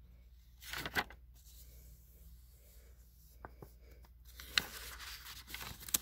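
Paper pages of a booklet rustling as they are handled and turned: a short rustle about a second in, two light ticks, then a longer rustle with a couple of sharp clicks near the end.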